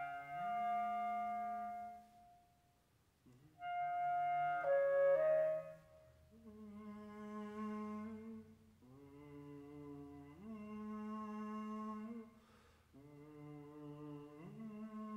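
Yamaha EXII alto saxophone playing long held notes with an electronic tape part of processed instrumental sounds, a contemporary concerto for saxophone and tape. Two loud sustained notes come with a brief near-silent pause about two seconds in. After that come softer held, layered tones whose low notes shift back and forth every couple of seconds.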